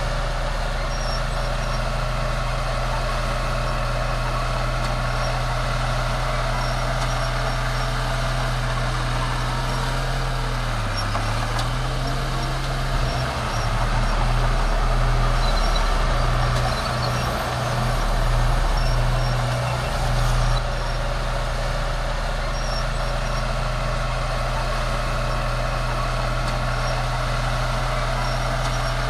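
Bulldozer's diesel engine running steadily. About ten seconds in, its pitch dips briefly, then for several seconds it runs louder and unevenly before settling back to a steady note.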